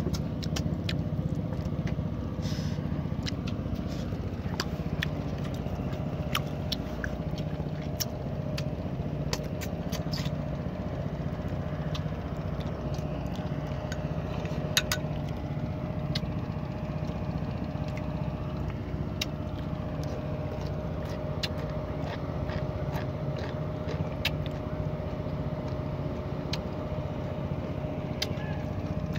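A boat engine running steadily at low speed, with many light clicks and taps scattered through it.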